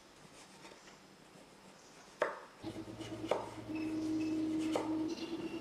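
Chef's knife slicing a raw potato on a wooden chopping board: three separate knocks of the blade reaching the board, about a second apart, after a quiet start. A low steady hum comes in partway through, under the knocks.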